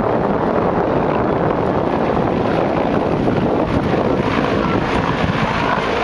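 Helicopter flying low past: steady rotor and engine noise, with wind buffeting the microphone.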